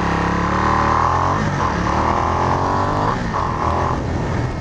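Ducati XDiavel's 1262 cc V-twin engine on its stock exhaust, pulling steadily under load as the bike rides along, with a brief dip in pitch about three seconds in.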